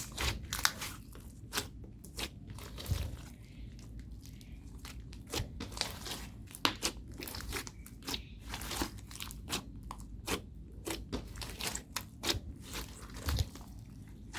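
Homemade slime being kneaded and pressed by hand, giving irregular crackling clicks and pops.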